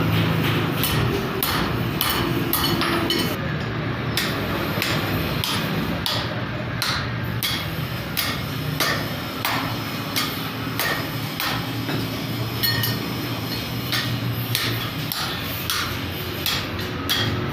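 Hammer striking a 1/2 inch steel rod again and again, sharp metallic blows at an uneven pace, as the rod is bent by hand without a bender. A steady low hum runs underneath.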